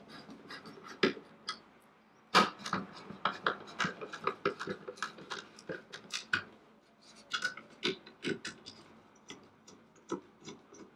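Screwdriver clicking and tapping on the small Phillips screws and metal retaining ring of a motorcycle headlight as the screws are tightened down: a string of irregular sharp clicks and light taps with short pauses.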